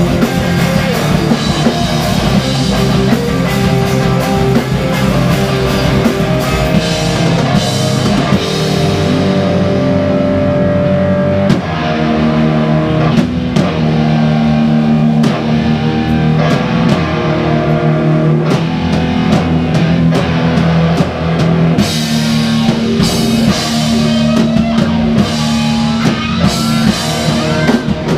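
A live rock band playing loudly in a rehearsal room: a drum kit with electric guitars and bass. The high crash of the kit thins out about nine seconds in, leaving guitars and drums driving underneath, and comes back in full about twenty-two seconds in.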